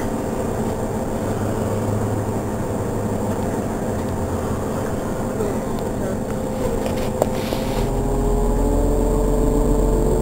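Idling Cummins ISL straight-six diesel of a New Flyer DE42LFA hybrid bus with Allison EP-40 drive, a steady engine hum with steady tones. There is a single click about seven seconds in, and just after it the engine gets louder and deeper with a slowly rising whine.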